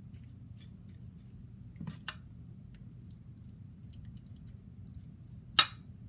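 A steady low hum with two faint clicks about two seconds in and one sharp click near the end.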